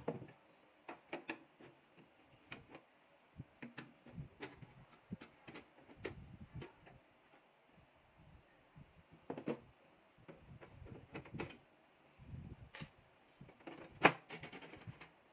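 Irregular clicks, knocks and short scrapes of a desktop computer's case and parts being handled, with one sharp click near the end.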